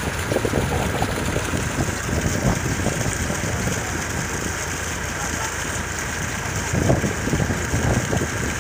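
Diesel engine running steadily under load, driving the pump of a newly bored tube well that has just started bringing up water.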